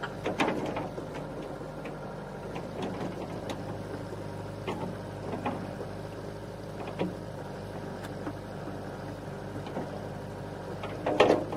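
Huina toy RC excavator's small electric motors and gearboxes whirring steadily as the boom and bucket move, with scattered light clicks. There is a louder short burst near the end.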